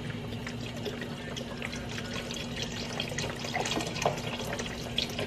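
Chicken stock pouring from a carton into a soup pot of cooked vegetables, a steady splashing of liquid.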